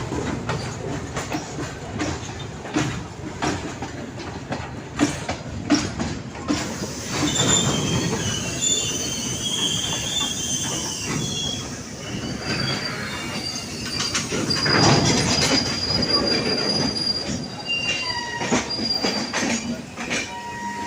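Passenger train running, heard from aboard: its wheels knock repeatedly over rail joints, and from about a third of the way in a high metallic squeal of the wheels on the rails rises over the running noise.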